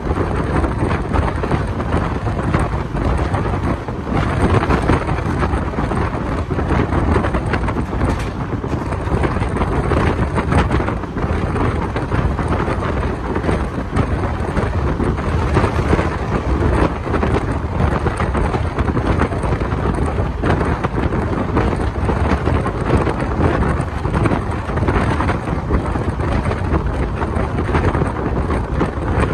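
Steady wind buffeting the microphone held out of a moving passenger train's window, over the running rumble of the coach on the rails.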